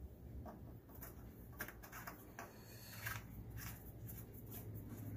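Faint clicks and light scrapes of an oil dipstick being worked back into the dipstick tube of a Yanmar diesel engine, over a low steady hum.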